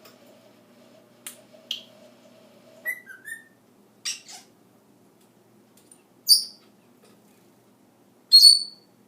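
Meyer's parrot making a string of short calls: a couple of clicks, two short whistles, then sharp high squawks. The loudest come near the end.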